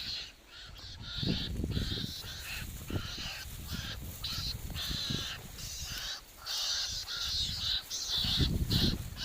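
A rapid series of short, high, harsh animal calls, several a second, with low rustling and thumps underneath.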